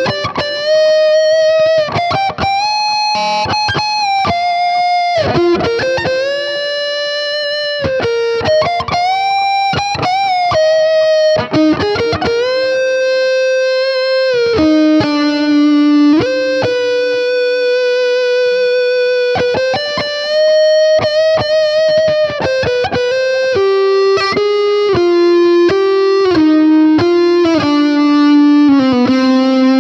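Harley Benton Fusion II electric guitar played through an Axe-FX III modelling a Friedman BE100 amp, on a lead tone from the neck humbucker. It plays a slow melodic solo of sustained single notes, with string bends and vibrato.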